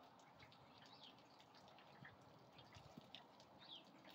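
Near silence: faint background with a few short, high, falling chirps of small birds.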